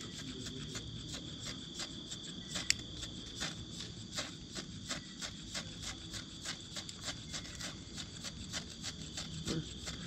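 Crickets chirping: a steady high trill, with a dense run of short sharp clicks over a low background rumble.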